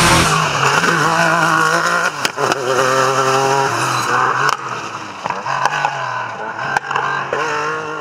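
Yamaha YXZ side-by-side's three-cylinder engine revving, its pitch rising and falling again and again as it accelerates, with a few sharp knocks in between.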